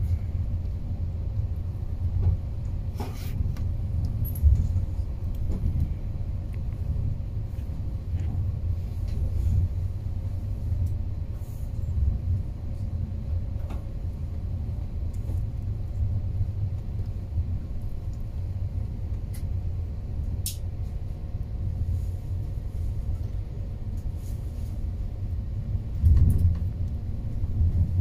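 Steady low rumble of a moving passenger train heard from inside the carriage, with a faint steady hum and occasional light clicks. A louder knock comes near the end.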